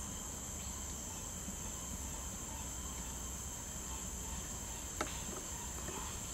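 Steady high-pitched chorus of jungle insects, a continuous shrill drone, with a single sharp click about five seconds in.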